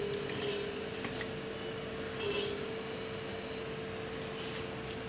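A metal spoon scrapes and clinks faintly against a stainless steel kadai as chicken curry is served, with a few scattered light clinks. A steady hum runs underneath.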